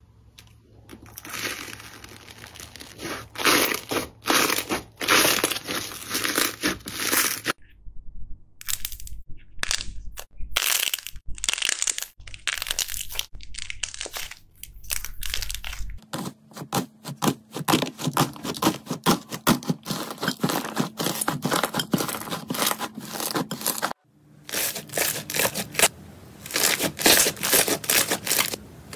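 Hands squeezing, stretching and pressing several slimes in turn, making a dense run of small crackles, pops and squishes. The texture of the crackling changes abruptly three times, about every eight seconds.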